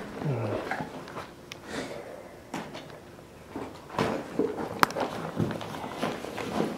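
Footsteps and scattered knocks and clicks from moving about on a debris-strewn floor, with one sharp click about five seconds in.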